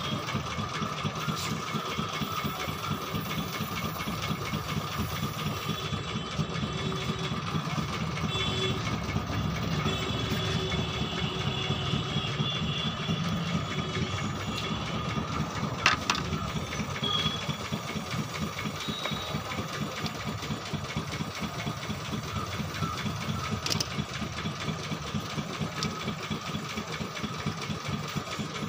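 Gas brazing torch flame burning steadily over the steady, rapid, rhythmic running of a motor, with one sharp click about halfway through.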